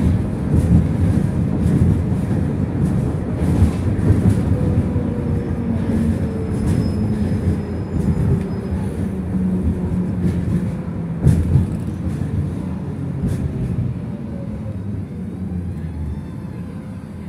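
Interior of a Belkommunmash BKM 60102 tram on the move: a steady low rumble of wheels on rails with scattered clicks, and a falling motor whine a few seconds in. The noise eases off near the end as the tram slows for a stop.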